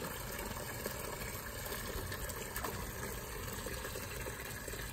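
A thin stream of rainwater from a rain barrel's valve splashing steadily into a partly filled plastic bucket.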